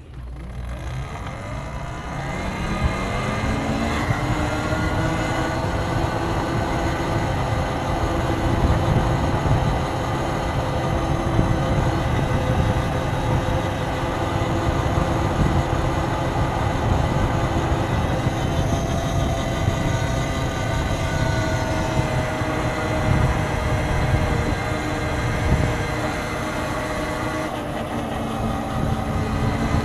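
A vehicle pulling away and riding on. Its motor whine rises in pitch over the first few seconds, then holds steady, with wind rumbling on the microphone.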